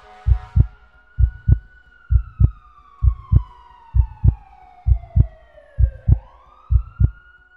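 Heartbeat sound effect, low thumps in lub-dub pairs about once a second, layered with an emergency-vehicle siren wail that falls slowly in pitch and then sweeps quickly back up near the end.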